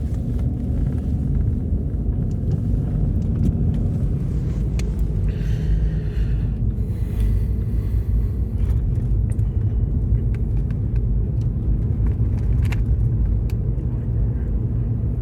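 Steady low road and engine rumble heard from inside a moving car's cabin, with a short hiss about five seconds in.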